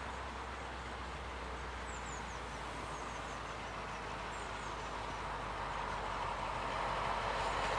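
Class 35 Hymek diesel-hydraulic locomotive approaching with a train, its Maybach engine growing steadily louder over the last few seconds. A few faint bird chirps sound above it.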